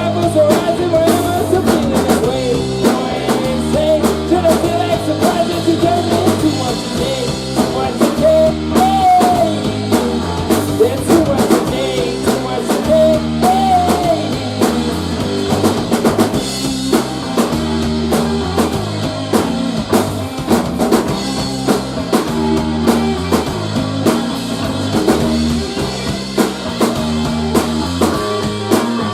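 A live rock band playing an instrumental passage with no singing, drum kit and bass keeping a steady beat.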